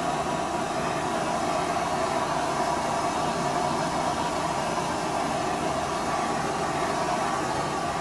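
Small handheld blowtorch running steadily: a continuous, even rushing hiss.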